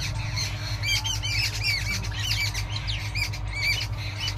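Birds calling with many short, repeated chirps, each note rising and falling, over a steady low rumble.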